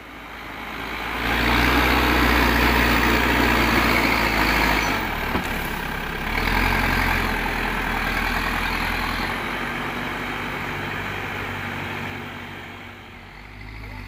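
Terex TLB 740S backhoe loader's diesel engine working under load as the front loader bucket pushes and scoops soil. It revs up about a second in, eases briefly around five seconds, picks up again, and drops back toward idle near the end.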